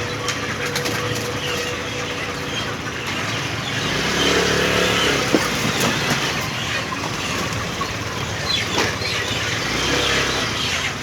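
A flock of broiler chickens clucking and flapping their wings during catching, with scattered sharp clicks and rustles over a steady mechanical hum underneath.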